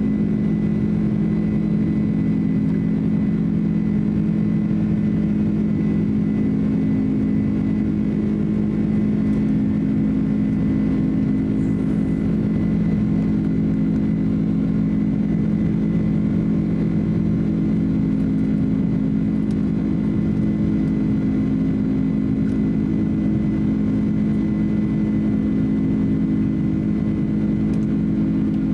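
Cabin noise of a Boeing 767-300 airliner's turbofan engines at climb power shortly after takeoff: a steady low hum with a thin, steady high whine on top.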